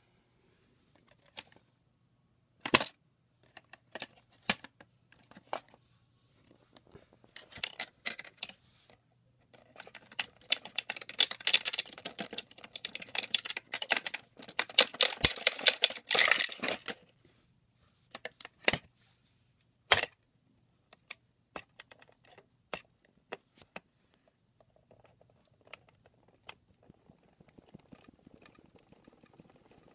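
Hands working on an alarm clock: scattered sharp clicks and taps, then about seven seconds of dense clicking, rattling and scraping from about ten seconds in, then a few more clicks.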